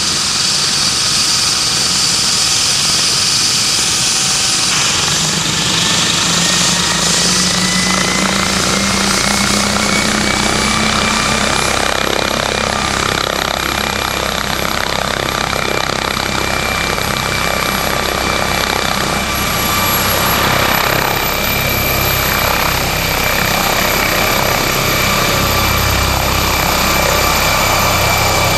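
MD 902 Explorer twin-turboshaft NOTAR medical helicopter running on the ground with its main rotor turning. A turbine whine climbs steadily in pitch over the first ten seconds or so as the engines spool up to flight speed, and it lifts off by the end.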